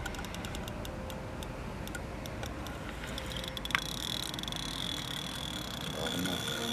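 Fishing reel ticking in scattered clicks while a carp is played, with one sharp click near the middle. A steady high tone comes in at the same moment and holds.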